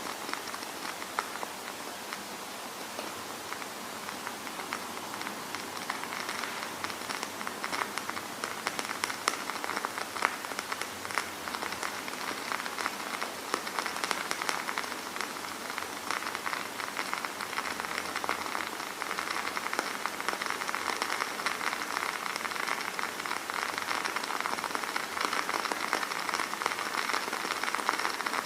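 Candle-burning sound effect: a steady, dense crackle of countless tiny clicks over a soft hiss, growing a little fuller after the first few seconds.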